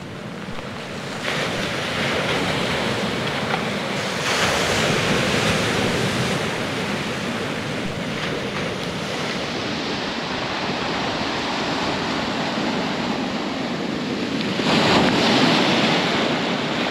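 Sea waves washing onto the shore, with wind buffeting the microphone. The noise swells about four seconds in and again near the end.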